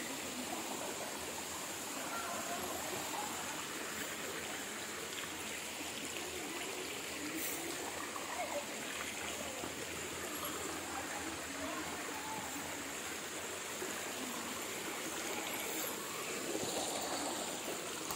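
A rocky mountain stream running steadily over boulders, an even rush and trickle of water, with faint voices now and then.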